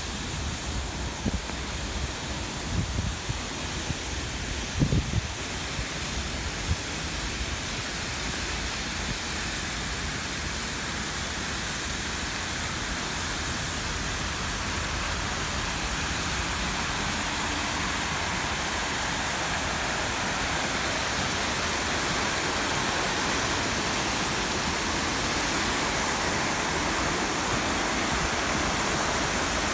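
Steady rushing hiss of fountain water jets splashing into a pool, slowly growing louder. A few low bumps come in the first few seconds.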